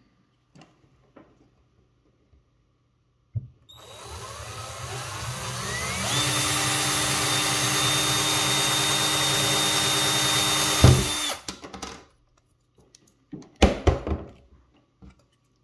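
Small electric drill boring a hole into the plastic interior of an H0-scale model railway coach: the motor speeds up with a rising whine, runs steadily for about five seconds and stops. A few knocks follow as the drill and model are handled.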